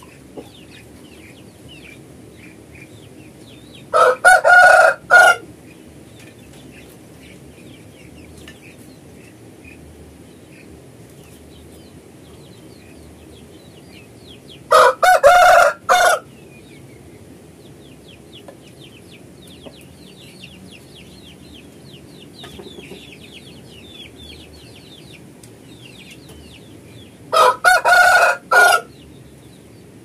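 Bangkok game rooster (ayam bangkok) crowing three times, each crow short and broken into a few parts, spaced about eleven seconds apart.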